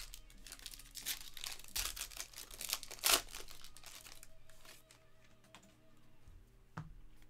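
A trading-card pack's wrapper being crinkled and torn open by hand. The crackling is loudest in the first three seconds, followed by quieter handling of the cards and a single tap near the end.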